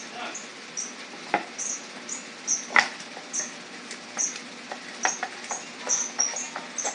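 Small box pieces knocking as they are set down, pressed and stacked on a workbench, with the loudest knock about halfway through. Short high chirps repeat steadily about twice a second.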